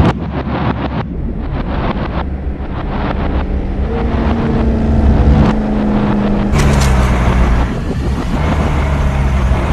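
Heavy low rumble of truck and car engines in city traffic, layered with pulsing, droning low tones of a film score. A broad rushing hiss swells in suddenly about six and a half seconds in.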